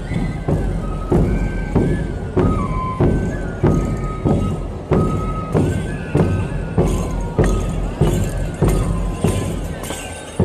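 Traditional Andean procession music: a drum beating steadily, a little under two strikes a second, under a high, shrill melody on a pito (small cane flute) that steps between a few notes.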